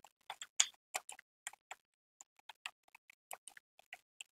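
Typing on a computer keyboard: a run of light, irregular key clicks, several a second.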